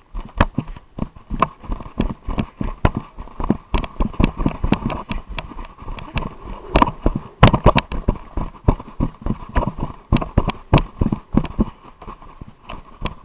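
Quick, irregular footsteps or knocks, about three to four a second, with a faint steady tone underneath.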